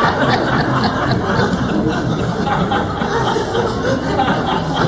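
Audience laughing and chuckling at a joke, a steady spread of laughter through the room.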